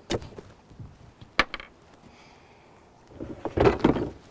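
Knocks and clatter of an outboard gear case and the broomstick it hangs from being handled and lifted: a sharp knock a little after a second in, then a louder stretch of clattering and rubbing near the end.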